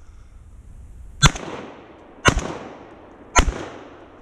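Three rifle shots about a second apart, each sharp crack trailing off in an echo.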